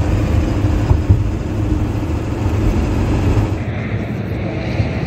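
Steady low road and engine rumble heard inside the cab of a moving converted-ambulance truck. About three and a half seconds in, it gives way to lighter, hissier outdoor noise.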